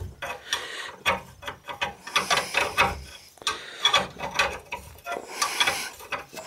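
Ratcheting box-end wrench clicking as it backs off the loose tie rod end nut, in short runs of quick clicks, one run for each swing of the handle.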